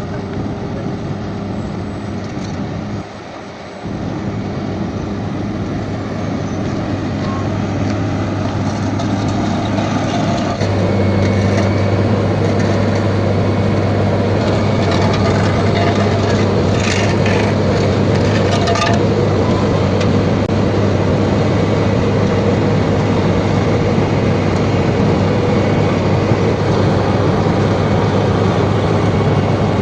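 Heavy road-construction machinery with its diesel engine running steadily; the engine gets louder about a third of the way in. A few short rattles and knocks come near the middle.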